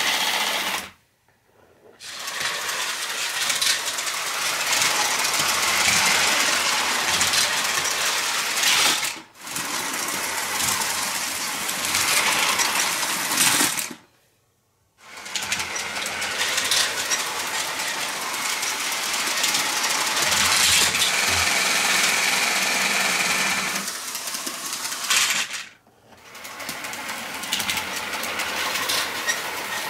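LEGO 12-volt train motors whirring and plastic wheels rattling along the track, a steady mechanical running noise that cuts out briefly a few times.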